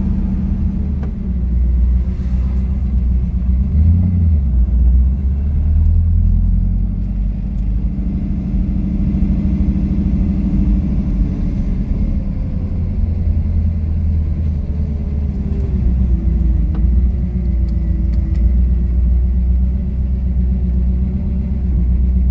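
1967 Mercury Cougar's V8, on Holley Sniper fuel injection, running under light throttle at low road speed, heard from inside the cabin as a steady low rumble. The revs rise briefly about four seconds in and again near the middle, then the engine note falls away as the car slows down.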